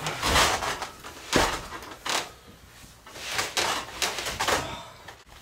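A mattress being shoved back up onto a wooden bunk bed frame: a series of bumps and rustling scuffs, about half a dozen in all.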